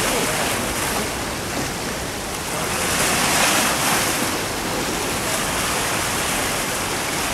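Sea surf washing in steadily, with one wave surging louder about three seconds in. Wind buffets the microphone.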